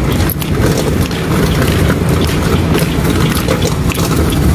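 Metal hand truck loaded with bundled books rolling over asphalt: a steady rumble from the wheels, with rapid small clicks and rattles from the cart and its load.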